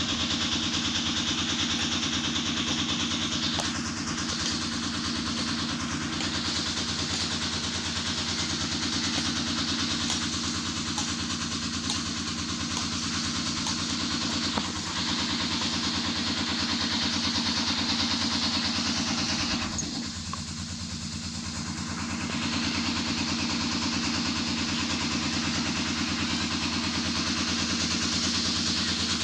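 An engine running steadily with a constant hum, easing briefly about twenty seconds in.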